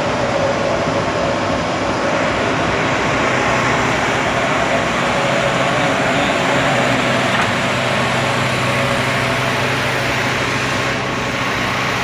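Heavy diesel machinery of a railway track-maintenance machine running steadily: a constant engine hum under an even mechanical noise.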